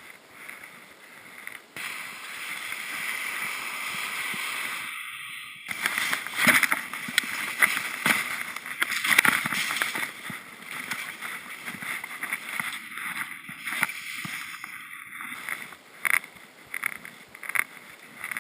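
Rushing noise of skis running through powder snow, with wind on the microphone. It gets louder about two seconds in and again about six seconds in, then goes on with uneven loud surges.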